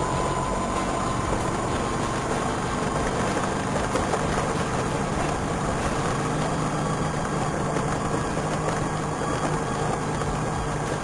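Vespa scooter engine running, with a thin siren-like whistling whine above the engine note that slowly glides in pitch.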